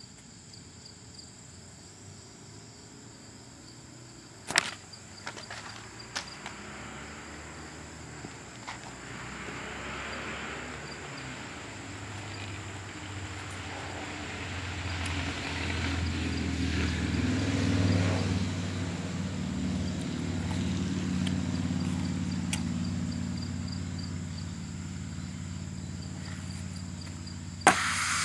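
A passing motor vehicle's engine rumble swells and fades over about ten seconds in the middle. At the very end a sharp pop and a rush of hiss as the compressed-air valve of a homemade creamer cannon opens and blows a plume of non-dairy coffee creamer into the air.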